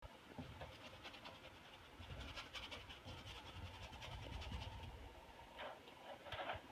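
Faint scratchy strokes of acrylic paint being worked onto a stretched canvas, quick short strokes in a run, then two longer, louder rubs near the end, over a low rumble.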